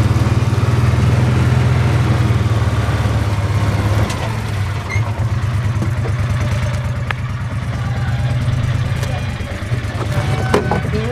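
A vehicle engine idling steadily, with an even low pulse that drops in level about four seconds in.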